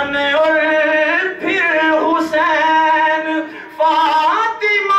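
A man's voice singing an Urdu manqabat, a devotional song praising the Prophet's family, in long held notes that waver slightly in pitch, with brief breaks between phrases.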